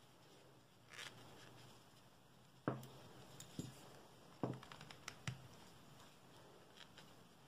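Faint handling sounds of crocheting with T-shirt yarn: soft rustling and four light clicks, roughly one a second, as fingers and the crochet hook work the stitches.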